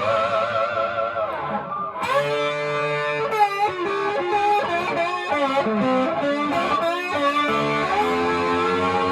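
Fender Stratocaster electric guitar played with a slide: held notes that glide in pitch, with wavering vibrato on several notes in the middle and a brief break about two seconds in.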